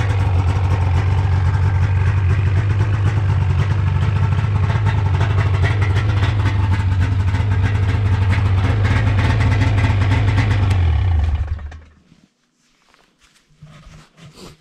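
2005 Lynx 550 snowmobile's fan-cooled Rotax two-stroke engine idling steadily, then stopping about eleven and a half seconds in. Only faint clicks and rustles follow.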